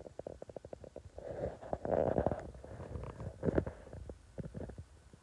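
Cat purring close up: a fast rattling pulse with louder, breathier stretches, the loudest at about two and three and a half seconds in.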